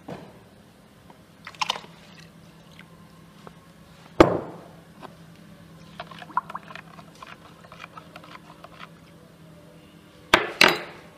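Knocks and clinks of kitchen utensils and dishes during dough-making: one loud knock about four seconds in, a run of light clicks after it, and two loud knocks close together near the end, over a faint steady hum.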